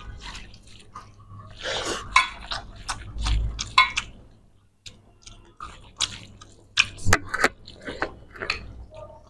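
Two people eating rice and fish curry by hand from stainless steel platters: fingers squishing and mixing wet rice against the metal, with chewing and mouth sounds in irregular bursts and clicks.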